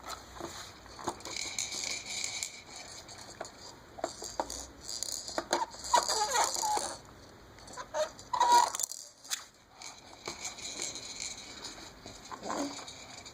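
A person making fart noises: a string of short, irregular sputtering bursts with pauses between them, the loudest about six and eight and a half seconds in.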